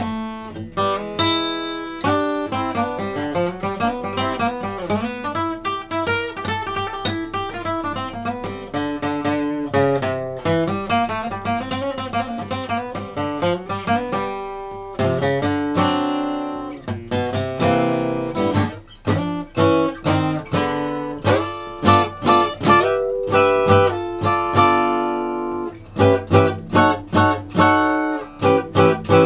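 Bedell Earthsong Orchestra acoustic guitar played solo: fingerpicked melody over chords, then a steady run of strongly struck, strummed chords near the end.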